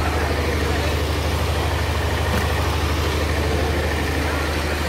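An engine running steadily, a low, even drone with a fast regular throb.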